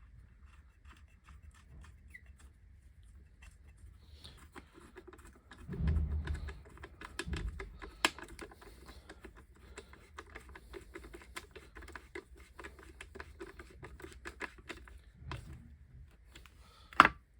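Quiet, irregular small clicks and ticks of a replacement bolt being threaded into a circular saw and its parts handled. There are two low thumps about six and seven seconds in and a single sharp click near the end.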